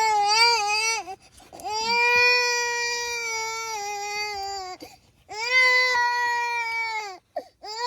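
A baby crying in long, high wails, three bouts of a second to three seconds with short gasps for breath between them.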